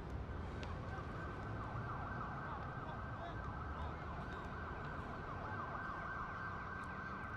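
A siren sounding continuously, its pitch sweeping quickly up and down, coming in about a second in over a steady low background rumble.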